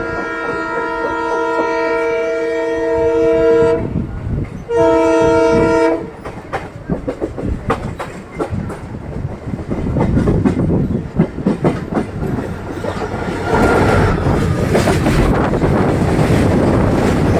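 A multi-tone train horn sounds two blasts, a long one of nearly four seconds and a short one about a second later. Then the wheels clatter over rail joints and points, rising to a louder rushing rattle near the end.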